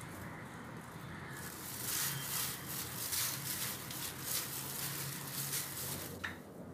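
Gloved hand stirring dry flour with yeast, salt and sugar in a bowl: a dry rustling and scraping in uneven strokes. It starts about a second in and stops about six seconds in.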